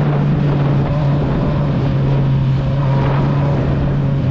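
Honda Hornet motorcycle engine running on the move, a steady exhaust drone that slowly falls in pitch as it eases off, with wind rushing over the microphone.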